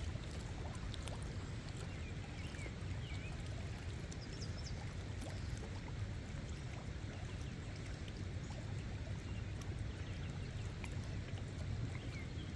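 Steady rushing water noise with a low rumble underneath, even throughout.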